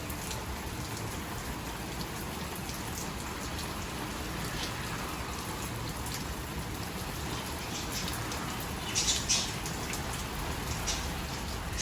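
Steady rain falling, with scattered drops ticking close by and a few sharper taps about nine seconds in.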